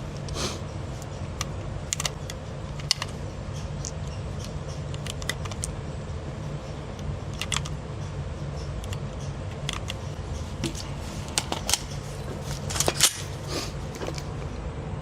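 Scattered small clicks and light knocks, like gear or a gun being handled, over a steady low hum, with a short cluster of louder clicks near the end.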